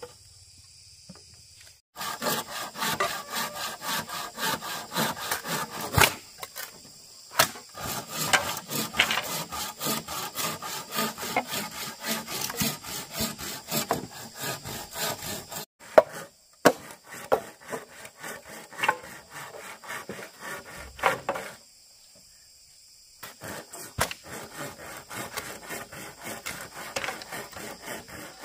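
A saw cutting bamboo in quick back-and-forth strokes, starting about two seconds in and pausing a few times.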